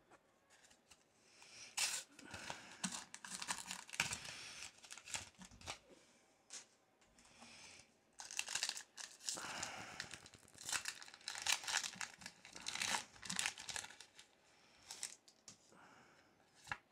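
Foil wrapper of a Pokémon card booster pack crinkling and tearing open in bursts, then the cards flicking and sliding against each other as they are thumbed through.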